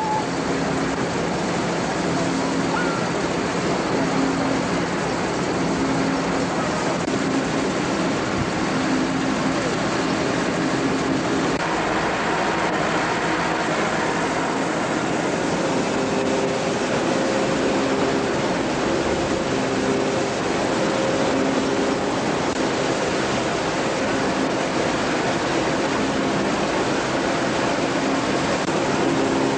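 Threshing machine running steadily, a continuous mechanical rushing noise with a low hum, with faint voices underneath.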